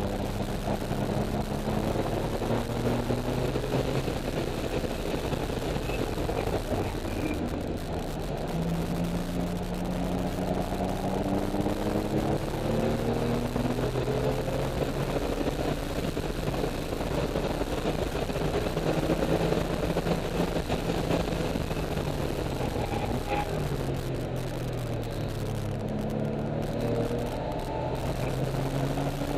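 2004 Porsche 996's flat-six engine heard from inside the car at track speed. Its pitch climbs repeatedly under acceleration and drops back at each gear change, with a longer fall in pitch as the car slows for a corner. Road and tyre noise sit underneath.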